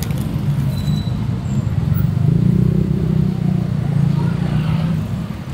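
A motor vehicle's engine running close by: a low, steady hum that swells about two seconds in and fades near the end.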